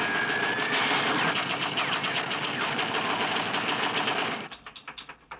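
Gatling gun firing one long, rapid, continuous burst that stops about four seconds in, followed by a few separate cracks.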